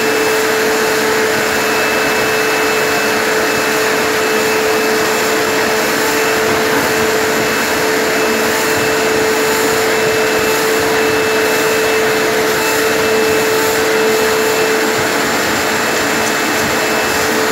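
Vacuum cleaner running steadily with a brush attachment on its hose, drawing loose fur off a Siberian husky as it is brushed. A steady rush of air with an even hum under it.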